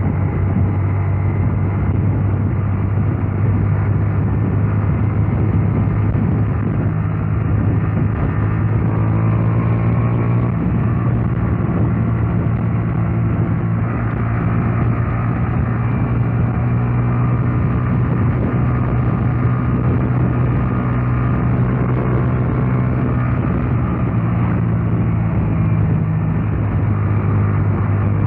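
Single-cylinder four-stroke engine of a Honda Titan 150 motorcycle running steadily while riding at an even speed.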